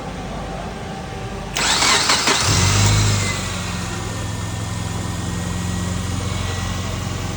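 Car engine being jump-started through jumper leads: the starter cranks for about a second, the engine catches, flares up briefly, then settles into a steady idle.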